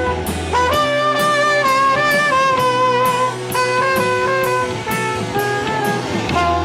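Live band playing an instrumental passage: a held, sustaining lead melody over bass and drums, with cymbal strokes about twice a second.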